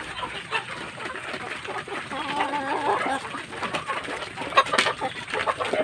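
Backyard chickens clucking, several birds calling over one another, with a couple of sharp, louder sounds about four and a half seconds in.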